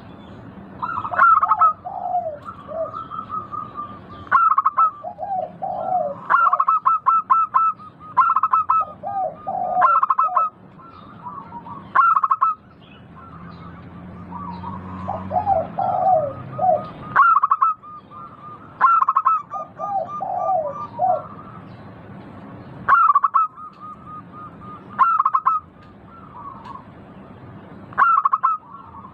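Zebra dove singing: repeated phrases of quick staccato coos, a new phrase every two to three seconds, some of them dropping to lower notes.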